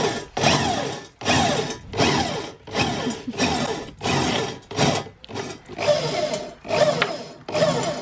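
Corded electric drill boring through the steel of a van's front cross-member panel, the trigger worked in short, repeated bursts, each with a falling whine as the motor slows.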